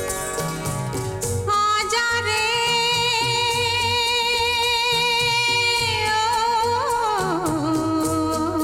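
Hindi film song intro: a woman's wordless vocal line comes in about a second and a half in, holds one high note with vibrato for about four seconds, then slides down in a wavering run to a lower note. A rhythmic instrumental accompaniment drops back under the held note and returns near the end.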